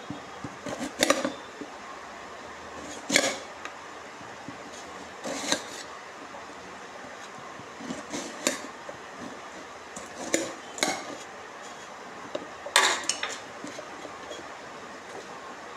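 Kitchen knife cutting a red onion, knocking against the cutting surface in irregular single strokes and short pairs every second or two.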